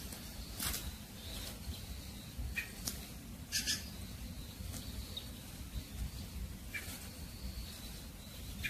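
A cat hunting a mouse under a mesh net spread over drying bean pods: about five short, sharp high-pitched squeaks or rustles, scattered irregularly, over a low rumble.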